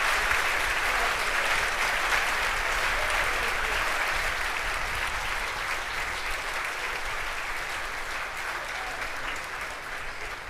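Crowd applauding at the main engine cutoff and stage separation of a Falcon 9 launch, the clapping slowly fading away.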